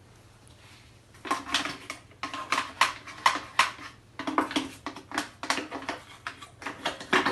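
Humidifier parts clattering and knocking as they are handled, a quick run of sharp knocks starting about a second in.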